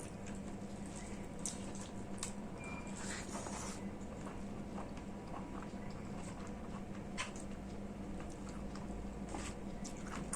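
Close-miked eating sounds: rice and soybean-potato curry being chewed, with scattered wet smacks and clicks, over a steady low hum.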